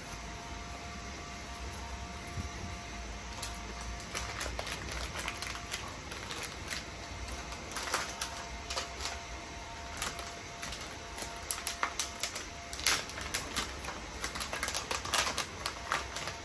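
Crinkling and crackling of clear plastic packaging handled by hand: plastic wrap and zip bags being rustled. The crackles start about a few seconds in and grow denser and louder toward the end.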